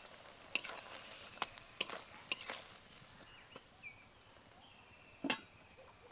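A spatula scraping and knocking against a kadai, about five sharp knocks in the first two and a half seconds and one more near the end, over a faint sizzle of drumstick stems cooking down in mustard-poppy paste.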